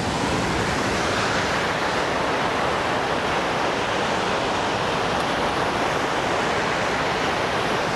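Steady rushing of river water flowing under a bridge, an even noise without breaks or rhythm.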